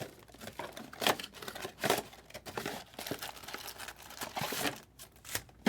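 Foil trading-card packaging crinkling and tearing in irregular rustles, as sealed card packs are handled and opened.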